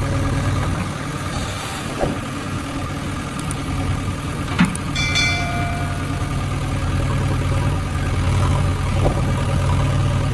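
An engine running steadily at idle. About four and a half seconds in there is a sharp click, followed by a short bell-like ring.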